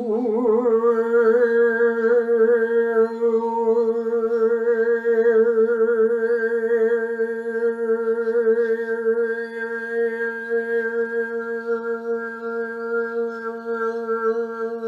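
A woman toning: one long sustained vocal note, wavering at first and then held steady.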